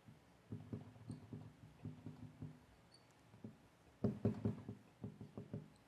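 Dry-erase marker squeaking and scraping across a whiteboard in short strokes as letters are written, with a louder run of strokes about four seconds in.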